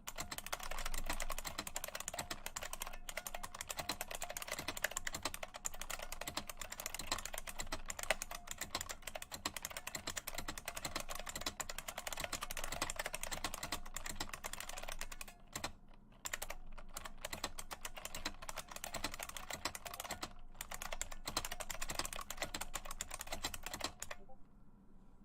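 Fast, continuous typing on a 1987 IBM Model M Space Saving Keyboard, its buckling-spring keys clicking. There are a couple of brief pauses a little past halfway, and the typing stops shortly before the end.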